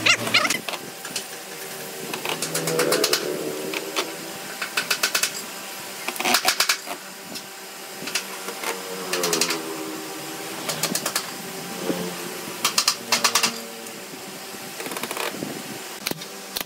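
Cordless drill-driver driving screws into pine pallet slats: a series of short bursts, each a rapid clatter as the motor spins up and winds down.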